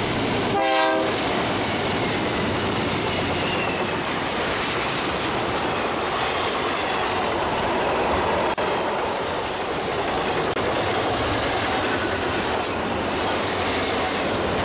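A BNSF freight locomotive gives a short horn blast about half a second in. Then a long intermodal train of double-stack containers and trailers rolls by close at hand, with a steady rumble and clatter of wheels over the rail joints.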